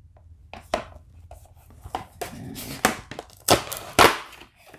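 A metal Blu-ray steelbook case being handled and turned over: a handful of sharp clicks and knocks with rubbing and sliding in between, the two loudest knocks near the end.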